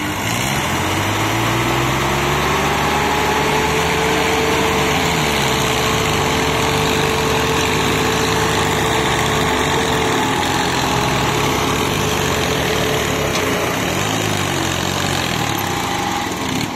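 Several diesel tractor engines running hard together, chained in a line and straining under a heavy pulling load, their engine notes overlapping. The revs climb in the first couple of seconds, hold steady, then fall away near the end.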